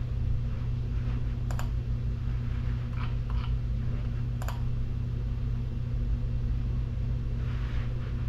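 A steady low hum with a few short, sharp clicks on top, the clearest about a second and a half in and again about four and a half seconds in, and fainter ticks between them.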